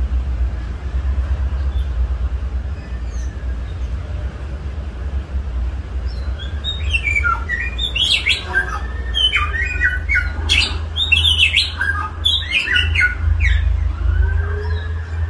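A songbird singing a fast, varied song of chirps, sweeping whistles and trills, starting near the middle and running for several seconds, over a steady low hum.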